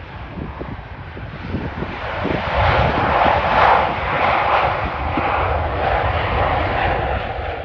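Jet aircraft engine noise swelling over the first few seconds to a loud peak, then easing off slightly while staying loud, with wind buffeting the microphone.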